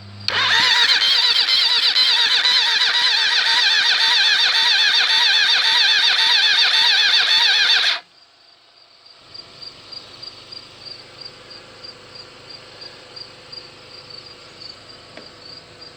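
Electric starter cranking a motorcycle engine with all plugs in for about eight seconds, its whine dipping and rising in a steady cycle as it labours against each compression stroke, then cutting off abruptly. The hard turning-over is taken by the owner for either the camshafts or worn connecting rod bearings in the bottom end. Afterwards a car engine idles faintly under steadily pulsing cricket chirps.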